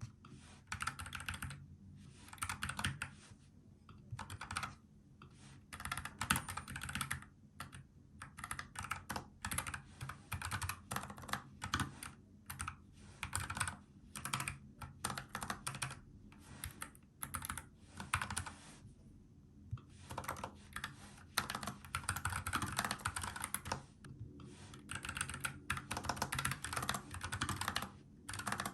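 Typing on a NuPhy Air75 low-profile mechanical keyboard with brown tactile switches: rapid key clicks in bursts of a second or two, with short pauses between them.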